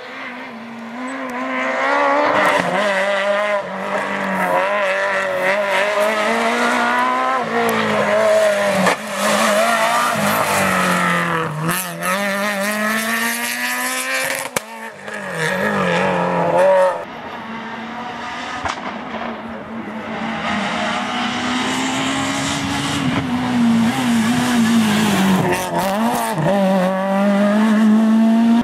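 Renault Clio R3 rally car's naturally aspirated four-cylinder engine revving hard at speed, its pitch repeatedly climbing and dropping through gear changes and lifts. The sound breaks off abruptly a few times, partway through and again later on, as one pass gives way to the next.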